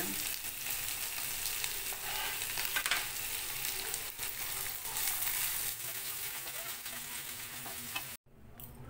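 Chopped carrots and green beans sizzling in ghee in a frying pan, turned with a wooden spatula that scrapes against the pan now and then. The sizzle cuts off abruptly near the end and comes back fainter.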